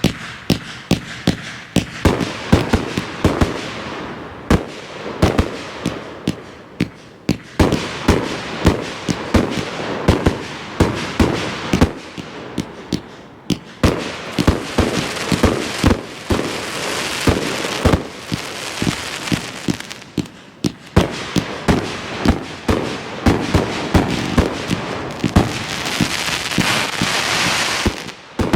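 Night Owl Grave Digger compound firework cake firing: a rapid run of tube launch shots, two to three a second, with stretches of dense crackle from the breaks overhead.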